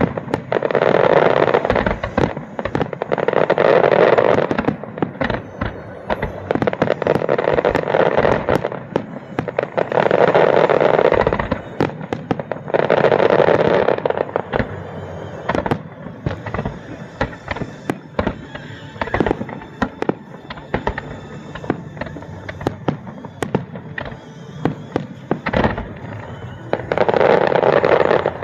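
Aerial fireworks display: a rapid run of shell bursts and sharp bangs. Dense, rumbling volleys lasting a second or two come about every three seconds for the first half, then scattered single bangs, then another heavy volley near the end.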